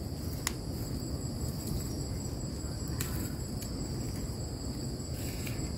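Steady high-pitched insect chorus ringing continuously, over low rustling, with a couple of faint clicks, about half a second and three seconds in.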